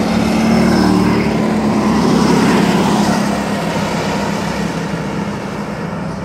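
Go-kart engines running at high revs as karts pass close by, the sound slowly fading as they pull away down the track.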